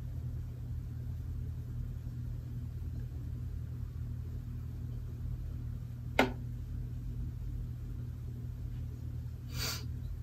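Steady low room hum, with one sharp click about six seconds in and a brief soft hiss near the end.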